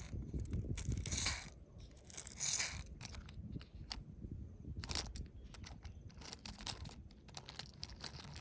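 Irregular clicks and taps, with two short scratchy rustling noises about one and two and a half seconds in, as of objects being handled.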